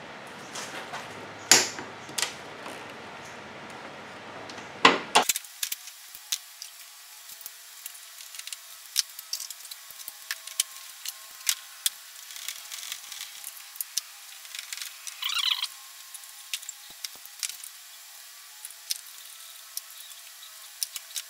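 Hand ratchet, socket and loose bolts making scattered metallic clicks and clacks as 12 mm bolts are taken out of the engine, with a few louder clacks in the first five seconds and a brief quick run of clicks about fifteen seconds in.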